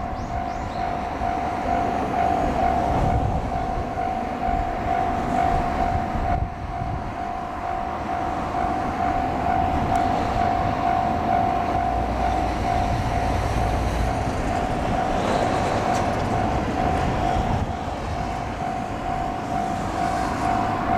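Japanese level-crossing alarm ringing without a break, one steady tone, while a train runs past with the rumble of its wheels on the rails.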